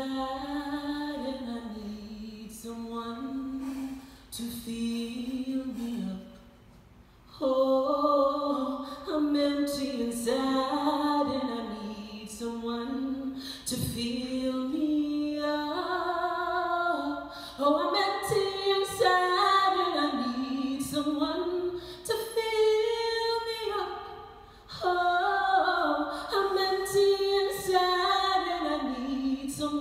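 A woman singing solo a cappella, with no accompaniment: long held notes that slide up and down in pitch. There is a short break for breath about six seconds in and another about three-quarters of the way through.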